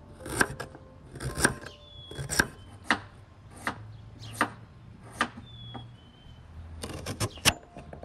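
A cleaver chopping beetroot on a wooden cutting board: sharp knocks of the blade through the beet onto the board, about one a second, then a quick run of about five chops near the end.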